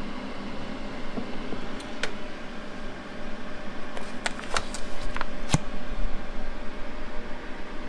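Clicks and rustles of a vacuum-sealed plastic bag being handled and lifted out of a chamber vacuum sealer, mostly between about four and six seconds in, over a low steady hum.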